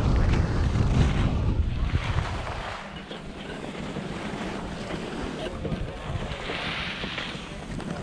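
Wind noise on a GoPro microphone while skiing downhill, heavy at first and easing after about two and a half seconds, with skis scraping over the snow and a brighter hiss from a turn near the end.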